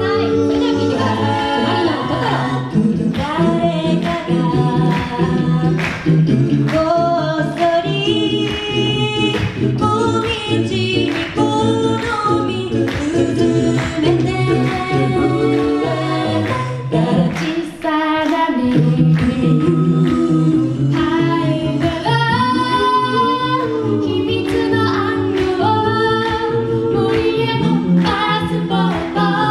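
Mixed-voice a cappella group singing a song through microphones, several voice parts in harmony, over a steady beat kept by vocal percussion.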